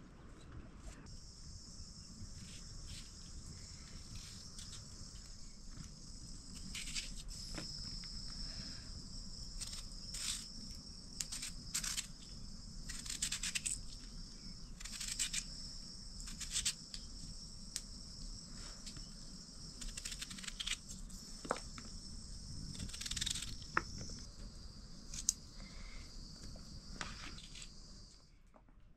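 Insects calling in a steady, high continuous chorus, with scattered short clicks and knocks over it; the chorus cuts off just before the end.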